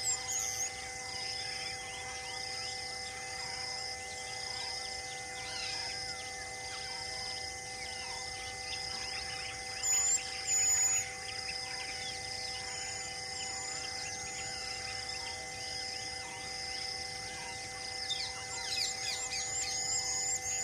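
Forest ambience: a steady insect drone with a high pulsing call about once a second, and bird chirps, loudest in two high chirps about halfway through and a quick run of rising chirps near the end.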